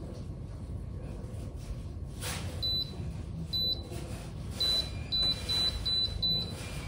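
Electric hob's touch controls beeping: seven short, high beeps, the first two spaced out and the rest coming quickly, as the heat is set to one below the highest setting.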